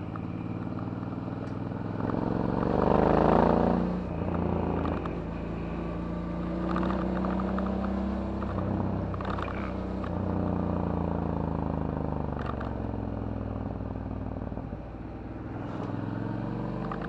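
Suzuki DL650 V-Strom's 645 cc V-twin with a titanium Akrapovic exhaust, running on the move. It revs up about two to three seconds in, its loudest point, then settles and rises and falls gently with the throttle, easing off briefly near the end. A few light clicks are scattered through.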